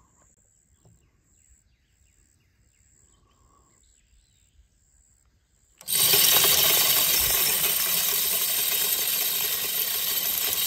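Faint insect chirping pulsing steadily, then about six seconds in a deer feeder's spinner motor starts suddenly and flings shelled corn out: a loud, dense spray of kernels that runs on, easing slightly. The spinner motor is being test-run after repair.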